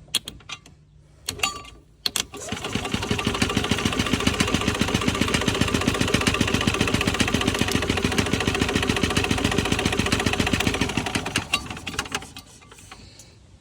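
Yamaha G9 golf cart engine turned over by its starter, jumped straight from a jumper cable, cranking steadily for about ten seconds without firing. It is spinning pretty slow. A few sharp clicks come first, as the cable touches.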